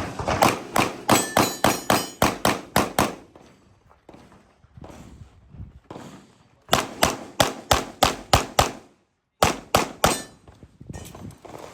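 Kimber 2K11 pistol firing fast strings of shots, about four to five a second: one string, then a pause of about three seconds, then a second string and a few more shots.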